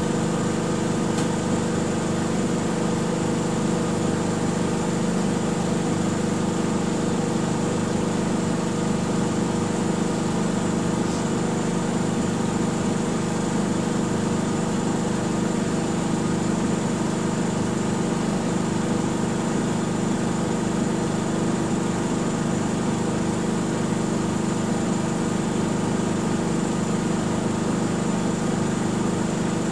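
Miele W 5963 front-loading washing machine in its spin cycle, running at a steady speed with a constant hum and a high whine above it.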